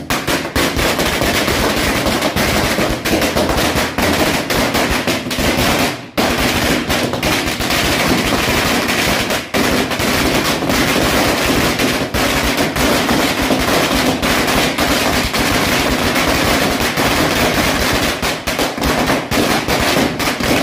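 A 10,000-wala string of firecrackers going off: a dense, continuous rapid-fire crackle of small bangs, with a brief lull about six seconds in, cutting off suddenly near the end.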